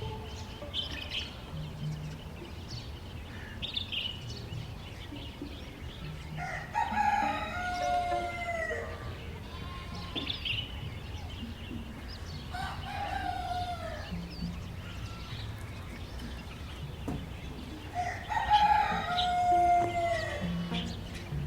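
A rooster crowing three times, each crow about two seconds long and falling in pitch at the end, with small birds chirping briefly in between.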